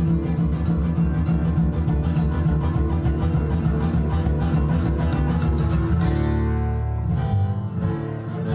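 Acoustic guitar playing the instrumental end of a song with a steady rhythm of strummed chords. About six seconds in the rhythm stops and held chords ring out, with a last chord near the end.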